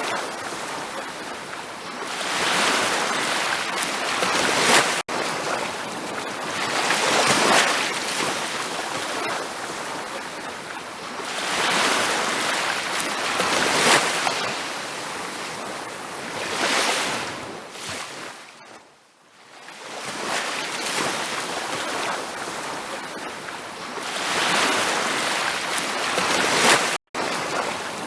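Ocean waves washing onto a beach, surging and receding in swells every few seconds, with a quieter lull past the middle and a split-second dropout to silence near the end.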